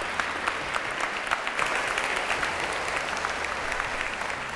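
A large audience applauding, dense sustained clapping that begins to die away near the end.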